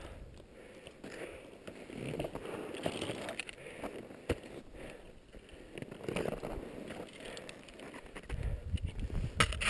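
Faint, irregular crunching and scraping of a climber moving up a snow slope on a fixed rope with an ascender, with a sharp click about four seconds in. Near the end, wind starts buffeting the microphone with a low rumble.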